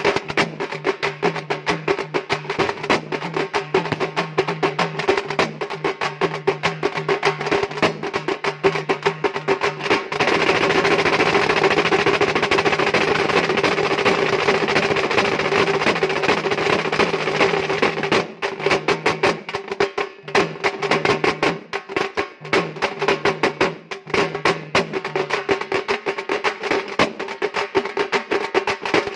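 A group of halgi, Maharashtrian frame drums, beaten with sticks in a fast, driving rhythm. From about ten seconds in, the strokes run together into a dense, continuous roll that lasts roughly eight seconds before the beat returns.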